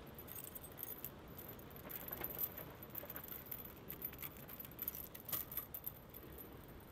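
Metal chain links clinking and jingling as lengths of chain are handled and joined by hand with a metal S-hook: light, irregular metallic clicks.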